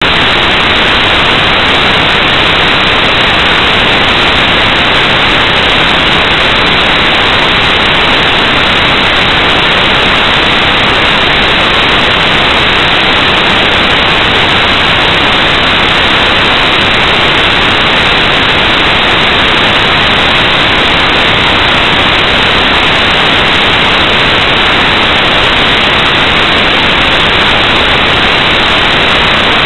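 Loud, unchanging static hiss with no other sound in it: electronic noise on a security camera recording's audio channel.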